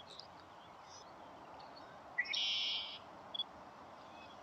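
A songbird calling: a short rising note that runs straight into a buzzy trill lasting just under a second, about two seconds in, with faint chirps of other birds before it.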